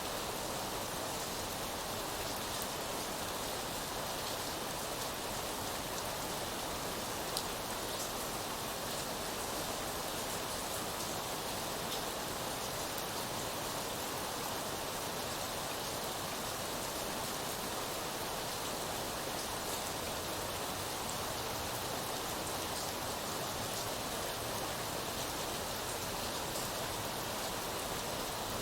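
Steady rain falling: an even hiss with scattered faint drop ticks, one a little louder about seven seconds in.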